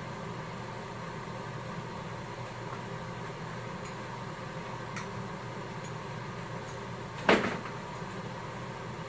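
A steady low hum and hiss of a workshop, with a few faint ticks around five seconds in and a single sharp knock a little over seven seconds in, the loudest sound.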